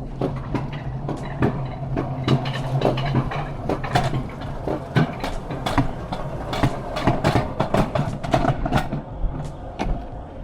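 Alpine coaster cart being pulled up the lift section, its wheels and tow mechanism rattling and clacking irregularly on the metal track, over a low hum that drops away about three and a half seconds in.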